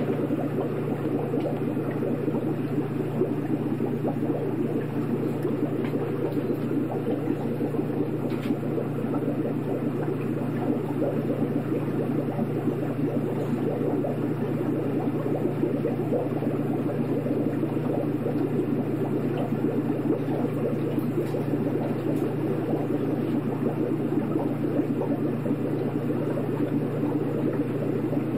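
Aquarium equipment running steadily: a constant low hum under a dense bubbling and gurgling of water.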